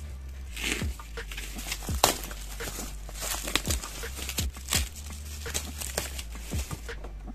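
Bubble wrap crinkling and crackling as it is slit open with a snap-off utility knife and pulled apart: a run of short, sharp crackles, the loudest about two seconds in.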